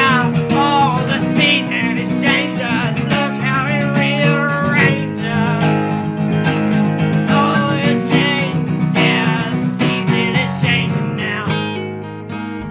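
Music: a song with strummed acoustic guitar and a wavering melodic line over it.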